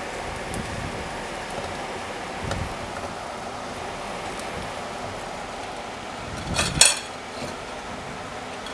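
Steady rush of a kitchen range hood exhaust fan over shrimp and oatmeal sizzling in a frying pan as they are stirred with a spatula. About seven seconds in comes a sharp double clatter of kitchenware, the loudest sound.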